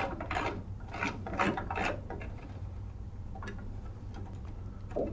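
Rotary-encoder time knob of a Samsung microwave being turned by hand: irregular rubbing and clicking for about two seconds, then only faint scattered ticks. The encoder has been freshly cleaned and now steps smoothly.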